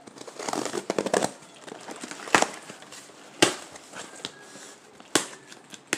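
A cardboard shipping box being opened by hand: a burst of rustling and tearing in the first second or so, then three sharp knocks over the next few seconds.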